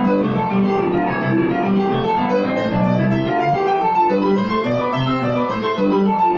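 Grand piano played with both hands: a steady, unbroken run of notes over a moving bass line.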